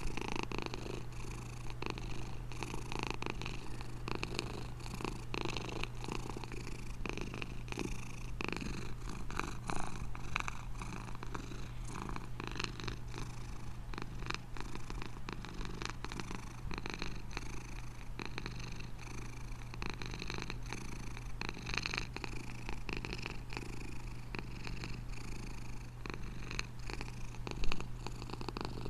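Domestic cat purring steadily, with one brief louder sound near the end.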